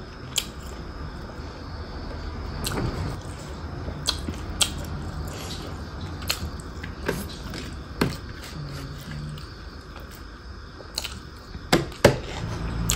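Close eating sounds: fingers mixing rice and pork curry on a plate, and chewing, with scattered sharp smacks and clicks, the sharpest pair near the end.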